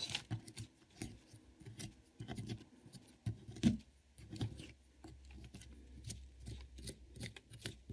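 A digging tool scraping and chipping at the plaster block of a dinosaur excavation kit: irregular short scrapes and small clicks of plaster breaking away.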